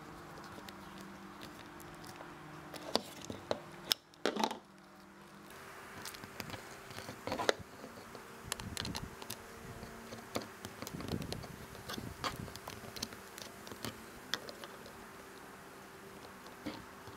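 Screwdriver tightening the terminal screws of a plastic GFCI plug: scattered small clicks, ticks and scrapes of the metal tip on the screw heads and of the wires and housing being handled, over a faint steady hum.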